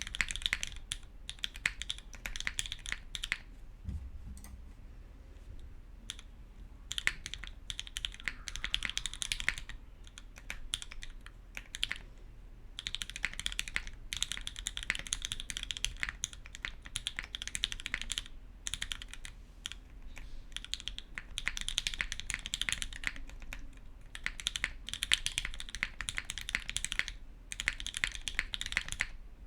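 Typing on a SingaKBD Unikorn R1 mechanical keyboard with lubed, filmed Gateron Ink v1 linear switches in an aluminum plate and GMK keycaps: fast runs of keystrokes broken by short pauses, the longest a few seconds in, with a low thump about four seconds in.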